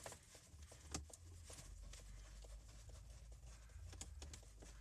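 Faint scattered clicks and taps of a Phillips screwdriver backing a screw out of the dash panel, with a quick run of clicks near the end.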